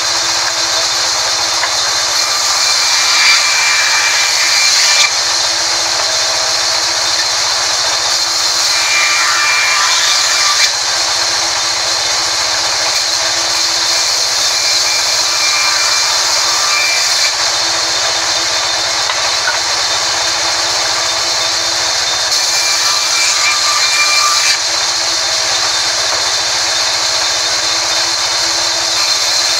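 Sawmill band saw running steadily while cutting through a mahogany log: a loud, continuous hiss of blade and wood, with faint higher ringing notes coming and going every few seconds.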